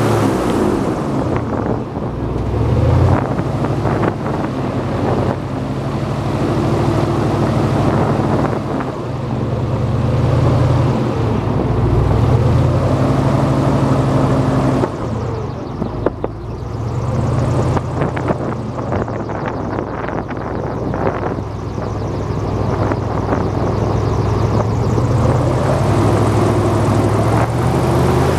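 Airboat engine and propeller running under way, the engine speed rising and easing off several times.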